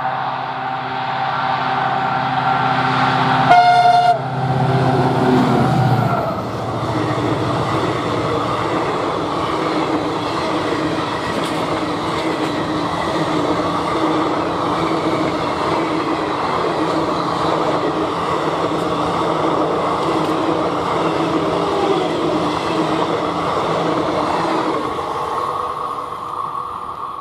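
EMD WDG4 diesel locomotive, a two-stroke EMD 710 engine, passing at speed with its horn sounding: the horn and engine are loudest about four seconds in as it goes by, then drop in pitch. Its coaches then roll and clatter past for about twenty seconds, fading near the end.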